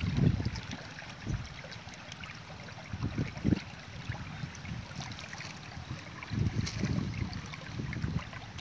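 Wind buffeting the microphone in irregular low gusts, with faint clicks and taps of hands working a fitting on a portable water pump's inlet.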